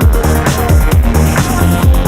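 Electronic dance music with a fast, heavy beat: punchy kick drums and deep bass drops.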